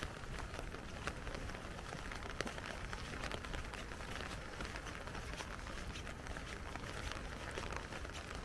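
Rain falling on an umbrella: a steady hiss of rain with many small drops ticking on the canopy.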